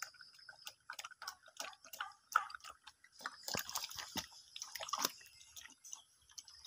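A sow eating from a concrete trough: irregular wet smacks and chomps of her mouth working the feed, several a second.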